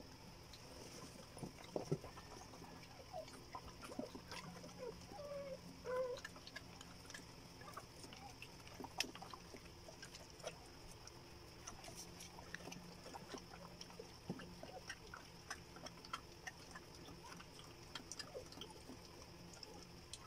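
Quiet towel rustling and small handling clicks as a newborn puppy is received and rubbed dry in a towel during whelping, with a few short, squeaky dog whimpers a few seconds in.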